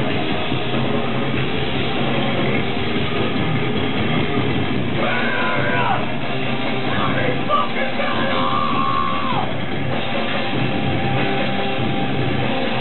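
Live heavy metal band playing loud and dense, with a higher line bending in pitch in the middle.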